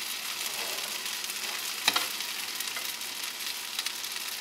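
Spaghetti with red pesto and chickpeas sizzling steadily in a hot frying pan, with a single clink of a metal spoon about two seconds in.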